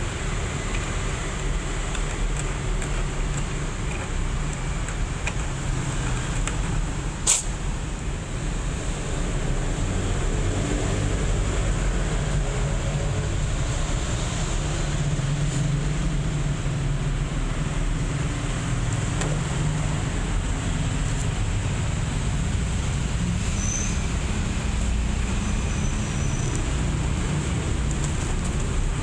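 Steady low rumble of road traffic, with a faint steady high whine and a single sharp click about seven seconds in.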